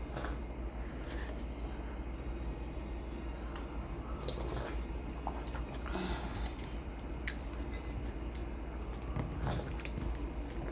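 Close-miked chewing and mouth sounds: soft wet smacks and small clicks scattered throughout, over a steady low hum.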